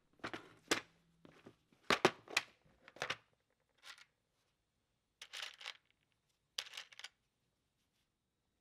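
Plastic twist-on wire connectors (wire nuts) clicking and rattling against each other and a plastic compartment organizer box as they are picked out by hand, in a string of short clattering bursts.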